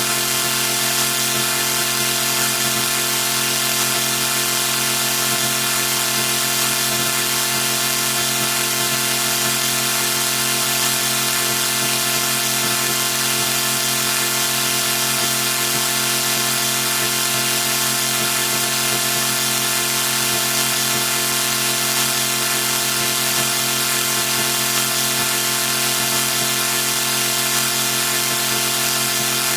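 A synthesized sawtooth-wave chord held steady and unchanging: several pitches sounding together with a bright, buzzy edge.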